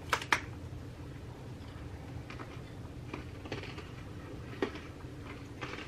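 Crunching and chewing of hard, honey-roasted sesame seed wafers: two sharp cracks as a piece is bitten just after the start, then scattered faint crunches while chewing.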